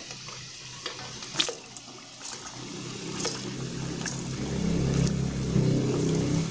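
Hot cooking oil sizzling and bubbling in a wok as pisang molen (pastry-wrapped banana) deep-fry, with scattered sharp pops. The frying grows louder and rougher from about halfway through.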